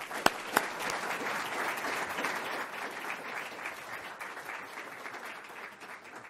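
Audience applauding, with a few sharp, loud claps close to the microphone at the start; the applause thins and dies away near the end.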